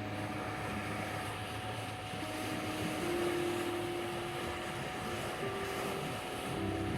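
A steady 741 Hz sine tone and soft held synth notes that shift slowly, over a continuous wash of sea surf.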